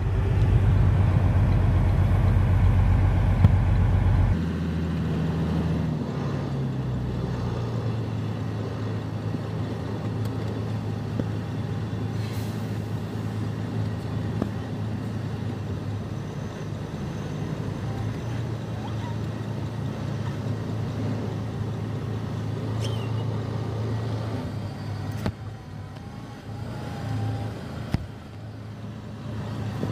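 Semi truck's diesel engine running. It is loud for the first four seconds, its note drops in steps over the next few seconds, and then it settles into a steady hum.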